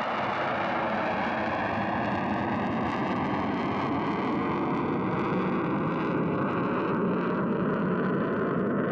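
Sukhoi Su-24MR's twin turbojet engines heard as the jet flies past overhead: a loud, steady rush of jet noise with a slowly shifting hollow, phasing tone, growing a little louder near the end.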